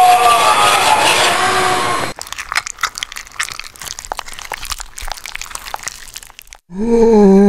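Halloween animatronic sound tracks. First, a loud voice-like wail with sliding pitch lasts about two seconds. Then comes the Flesh Eating Zombie prop's crunching, chewing gore effect of wet cracks and crackles, and near the end a loud, low, steady groan begins.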